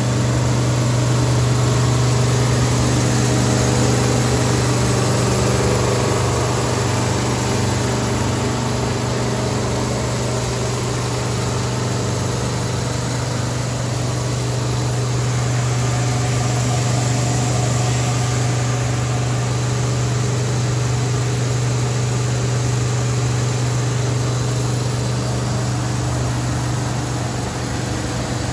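PP/PE film recycling and pelletizing line running: a steady, loud machinery hum from its electric motors over a constant mechanical noise.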